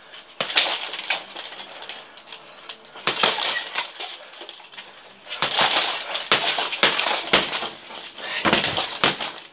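Flurries of punches landing on a chain-hung heavy punching bag, each burst a rapid run of thuds with the bag's suspension chains jangling, separated by short pauses.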